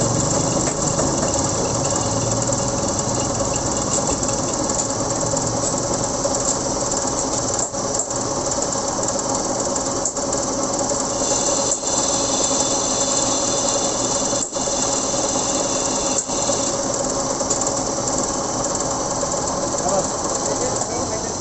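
Metal lathe running with a motorcycle wheel hub spinning in its chuck while a cutting tool bores the hub's welded aluminium bearing seat, trueing the oversized, loose bearing bore. A steady machine drone, with a high squeal from the cut that rises about eleven seconds in and drops back about six seconds later.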